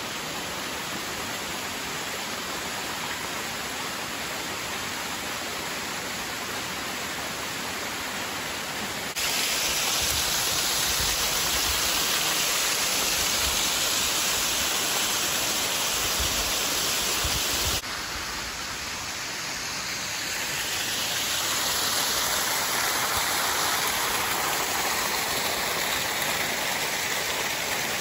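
Rushing water of a small mountain creek and its waterfall, a steady wash. It jumps abruptly louder about a third of the way in, where the water pours over rock ledges up close, drops back sharply just after halfway, then swells again as the creek runs down over rocks.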